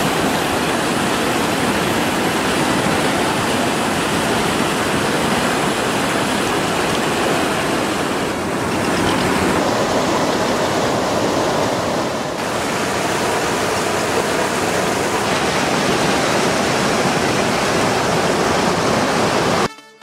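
Shallow stream water rushing over rocks: a steady, loud rush that cuts off suddenly just before the end.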